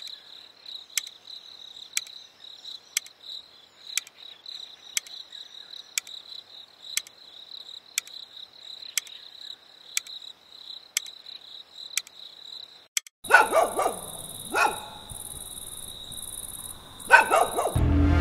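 Crickets chirping steadily with a sharp tick about once a second. About thirteen seconds in, a dog barks a few times over the crickets, then again near the end.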